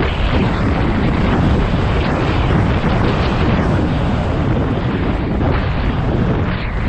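Loud, steady wind buffeting on a helmet-mounted microphone, caused by riding an electric scooter at speed.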